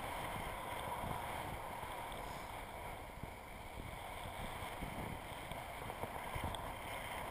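Steady rush of airflow over the camera in paraglider flight: wind noise.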